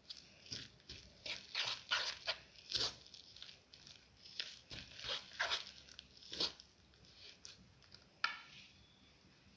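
A plastic spoon stirring and scraping a thick egg, sugar and flour mixture in a bowl, in quick irregular strokes that thin out after about seven seconds, with one sharper scrape near the end.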